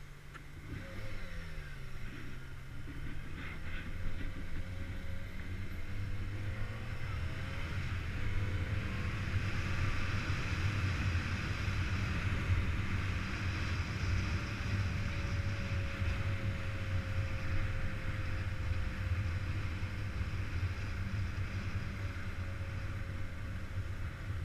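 Motorcycle engine whose pitch dips and rises over the first few seconds, then runs steadily and louder from about eight seconds in, with a steady rushing noise of air over the microphone.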